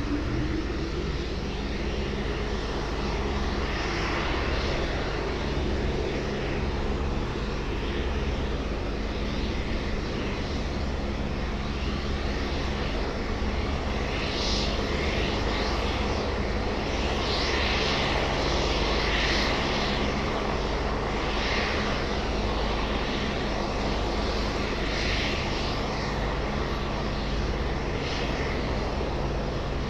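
Leonardo AW189 helicopter running on the ground during engine startup, its twin turboshaft engines and turning main rotor making a steady low hum. Every few seconds, at irregular intervals, a brief hissing swell rises over it.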